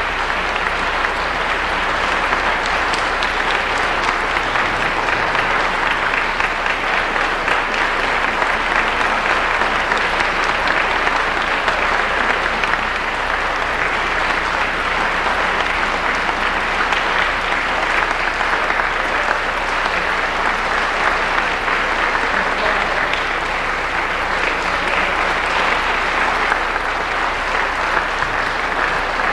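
Concert audience applauding steadily, a dense, unbroken clapping that does not let up.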